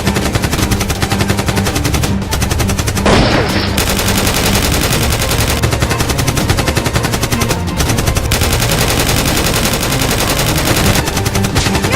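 Automatic gunfire sound effects in long, rapid, continuous bursts.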